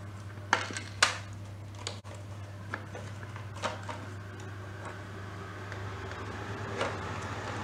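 Plastic UPS casing being handled, giving a few sharp clicks and knocks, the loudest about a second in, over a steady low hum.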